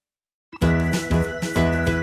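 Background music: silence for the first half second, then an instrumental track starts abruptly with a steady beat.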